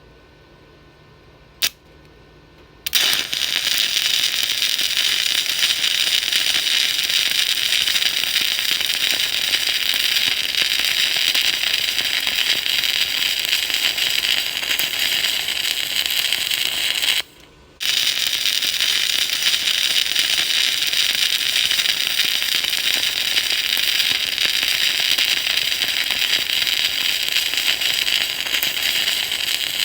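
Stick welding arc burning on a 2.0 mm 6013 rod with a steady crackle and sizzle. It strikes about three seconds in, after a single sharp click, then drops out for about half a second past the middle and starts again.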